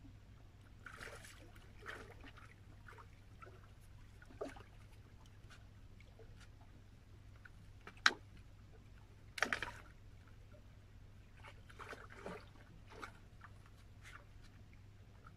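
Small splashes and sloshing of shallow water at the rocks as a hooked kingfish is brought in to the shore. There is a sharp click about eight seconds in, then the loudest splash about a second later.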